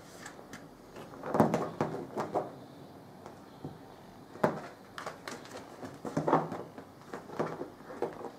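A cat swatting and grappling with a catnip toy dangled on a string over a fabric-covered footstool: irregular soft knocks and scuffs, the loudest about a second and a half in.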